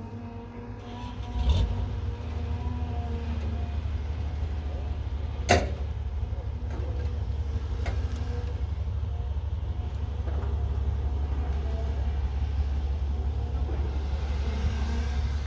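Caterpillar 312B excavator's diesel engine running with a steady low drone. A single sharp knock comes about five and a half seconds in.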